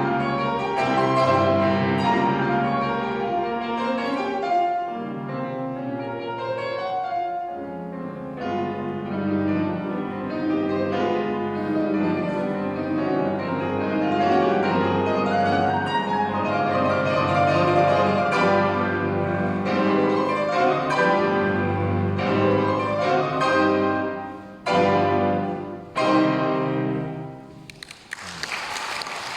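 A piano duet plays a romantic classical piece and closes with two loud chords about three-quarters of the way through. The chords ring out, and applause breaks out near the end.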